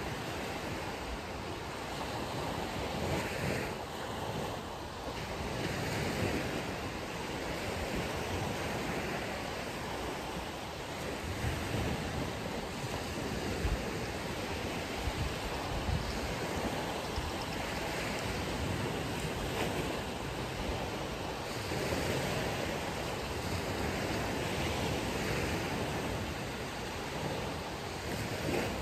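Ocean surf washing onto a beach, a continuous wash of waves that swells and eases, with wind buffeting the microphone.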